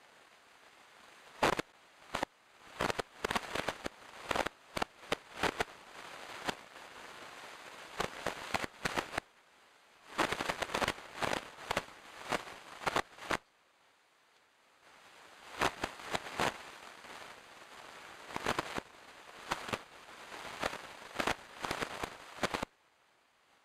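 Dry leaf litter and twigs crackling and snapping under a young red deer stag as it steps and noses about on the forest floor: clusters of quick sharp clicks with two short pauses, stopping shortly before the end.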